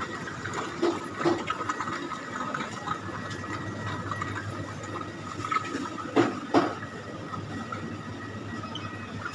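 Supermarket background noise: a steady hum and hiss of store machinery such as the open-front refrigerated display cases, with a few short knocks, two of them close together about six seconds in.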